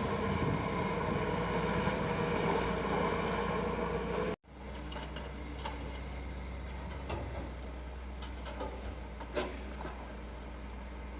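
Heavy diesel earthmoving machinery running steadily. About four seconds in the sound cuts off abruptly, then a quieter, lower engine hum goes on with a few scattered light clicks and knocks.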